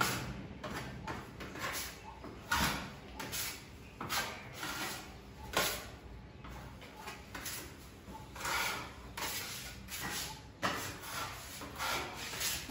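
A steel putty knife scraping wall putty across an interlock brick wall: short scraping swishes, one or two a second, in an uneven rhythm.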